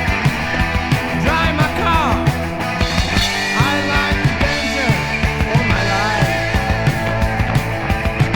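Heavy metal song: electric guitars, bass and drums playing with a steady beat.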